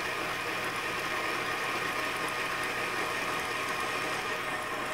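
Electric tilt-head stand mixer running at a steady speed, its motor giving a constant whine as the beater mixes crepe batter in a stainless steel bowl.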